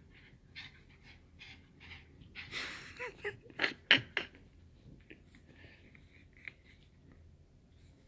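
Yorkshire terrier puppies breathing in quick, short snorting puffs while they play-tussle over a toy. About three to four seconds in there is a louder cluster of sharp snorts and clicks.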